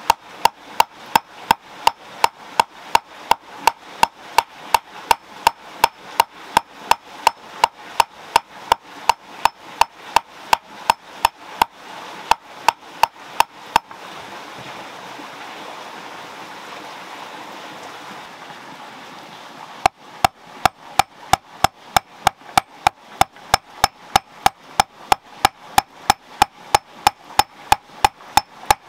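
A hammer forges a red-hot metal rod on a stone anvil, in a steady beat of about two and a half blows a second, each with a ringing metallic clink. About halfway through, the blows stop for about six seconds, leaving a steady hiss, then start again.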